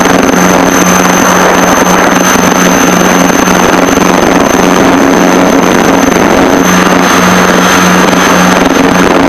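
Piper Seneca's twin piston engines and propellers running at high power, a steady loud drone with a low hum heard inside the cockpit, as the aircraft recovers from a practice stall.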